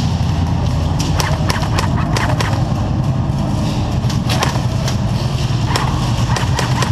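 Scattered sharp clicks and cracks of airsoft gunfire and BBs striking wood, coming in short clusters about a second in, near the middle and near the end, over a steady low hum.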